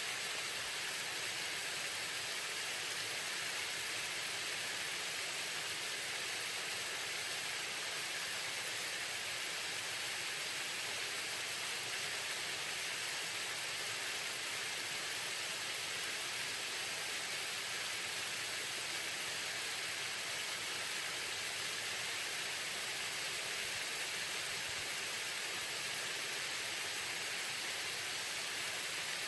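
Waterfall: a steady, even rush of falling water, a constant hiss without any single splashes.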